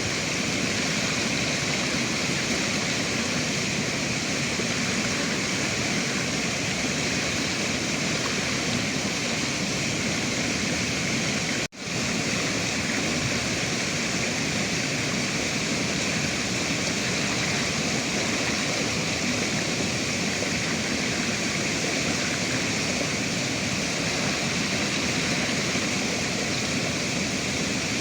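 Steady rush of flowing river water. It cuts out for a split second a little before halfway through, then resumes unchanged.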